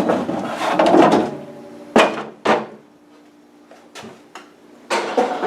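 Handling knocks and rustles at an open refrigerator's freezer compartment, with two sharp knocks about two seconds in and a few light taps after, over a faint steady hum from the running compressor. The evaporator fan is silent because its motor has failed.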